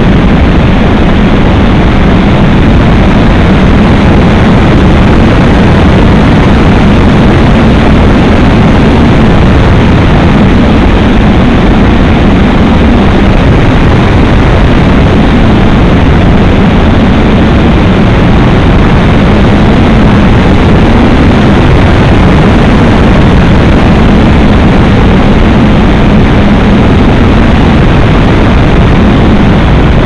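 Loud, steady rush of airflow over a small camera mounted on a radio-controlled EUROS thermal glider model in flight, with a low hum that wavers slightly in pitch.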